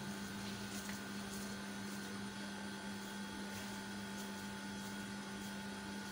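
Steady electrical hum with a low drone and a few fainter higher tones over a constant background hiss.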